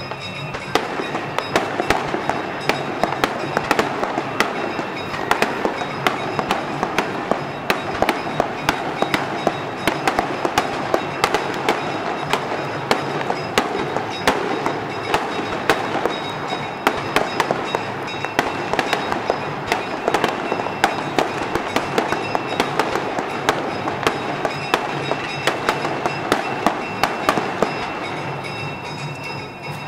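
Aerial fireworks going off: a dense, continuous run of sharp pops and bangs, several a second, from small golden shells and rising rockets.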